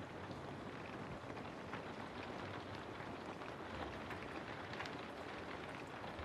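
Steady rain falling through forest trees, an even hiss with many individual drops pattering on leaves.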